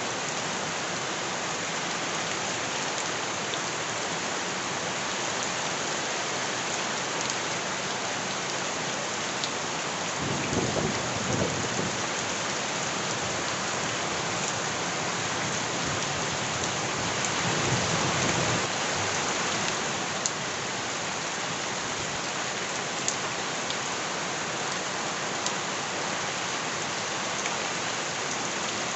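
Steady rain falling, with two low rumbles rising over it, a short one about a third of the way in and a longer one past the middle, and a few sharp drop clicks near the end.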